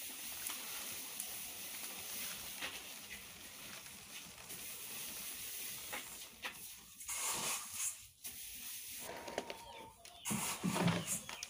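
Freshly fried puffed rice rustling and pattering as it is tipped from a perforated steel colander into a plastic jerry can, then scooped by hand from a bamboo basket in louder uneven bursts over the last few seconds. A short pitched call, perhaps an animal's, comes near the end.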